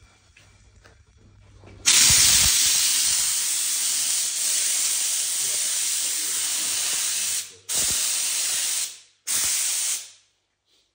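Steam cleaner's gun shooting a jet of steam with a loud, even hiss. It starts suddenly, runs for about five seconds, breaks off briefly, then comes back in two shorter blasts before stopping.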